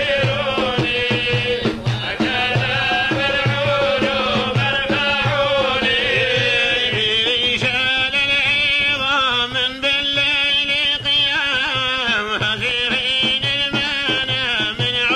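A man's voice singing an old Arabic qasida in long, wavering sung lines, over a steady low beat on a frame drum.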